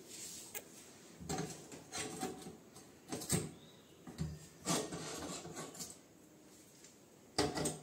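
Metal pan supports being set down onto a glass-top gas hob and its steel burner rings: about half a dozen separate clinks and knocks, with quiet handling noise between them.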